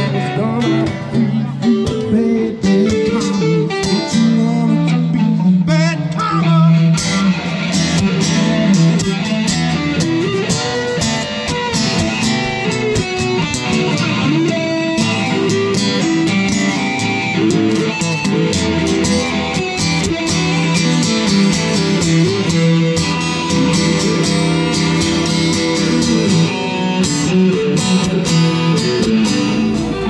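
A live band playing: electric and acoustic guitars over a drum kit keeping a steady beat, with the drumming getting busier about seven seconds in.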